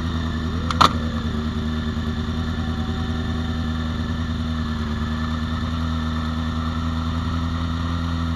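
Honda CBR600 F4i's inline-four engine idling steadily, with one sharp click about a second in.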